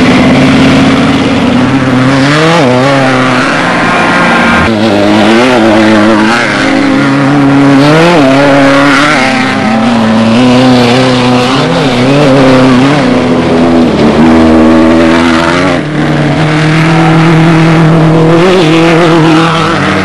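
An off-road desert race vehicle's engine running hard, its pitch climbing and dropping back over and over as the throttle is worked, over a steady rush of noise.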